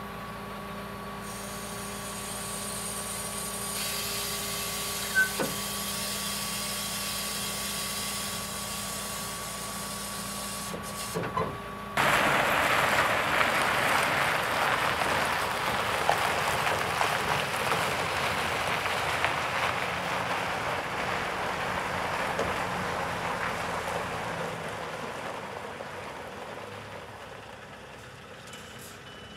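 Scania R730's V8 diesel engine idling: first a steady hum with a thin held whine, heard from the crane end, then about twelve seconds in a sudden louder rushing sound that slowly fades.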